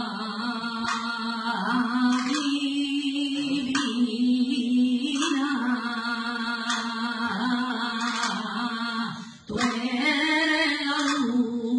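A woman singing a saeta, the unaccompanied flamenco devotional song, in long held notes that waver and ornament. She pauses briefly about nine and a half seconds in, then carries on.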